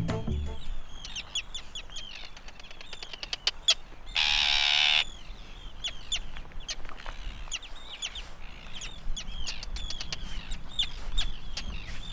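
A colony of nesting birds calling all around, with many short, high, overlapping cries, each falling away at the end: the birds are alarmed by someone close to their nests. One loud, harsh sound of under a second cuts across them about four seconds in.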